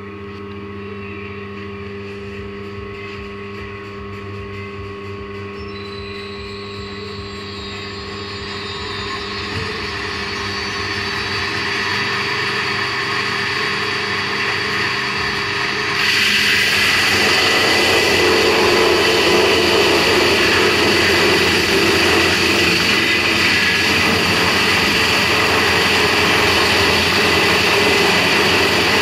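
Home-made band saw driven by a 4 kW spindle motor running, a steady hum joined by a high whine that builds gradually. About halfway through it abruptly turns much louder and noisier, then runs on steadily.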